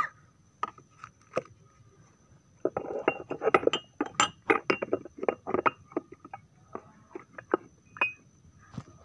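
Glassware clinking as jamu is served and mixed: a couple of single chinks, then a run of quick, irregular chinks from about two and a half seconds in, lasting about five seconds.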